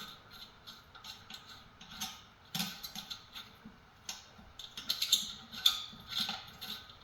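Small metal screws with lock washers being fitted and driven into a diesel heater's fan unit: irregular light metallic clicks and ticks, a little busier and louder about five seconds in.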